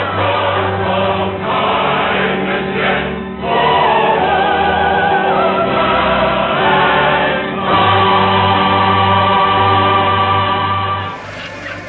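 Choral music: voices singing long held notes over a steady low bass. It stops about eleven seconds in and gives way to a quieter, different sound.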